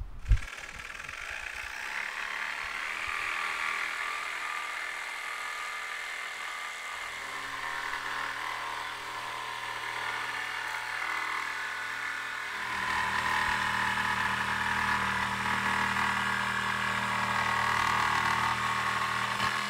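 Makita jigsaw cutting a notch into a cedar tongue-and-groove plank: the motor runs steadily while the blade saws through the wood, growing louder about two-thirds of the way through. A sharp click comes right at the start.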